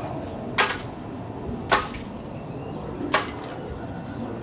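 Three sharp whacks about a second apart, a red plastic toy being swung against a tree.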